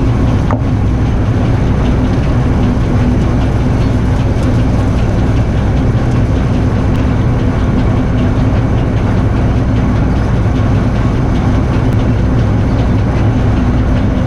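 Old combine harvester running steadily while harvesting soybeans: a constant engine and machinery drone with steady low tones.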